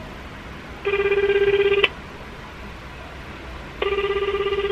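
Telephone ringback tone of an outgoing call, the sign that the line at the other end is ringing. It sounds as two one-second buzzing tones about three seconds apart, the fluttering low-pitched ring pattern of the Japanese network.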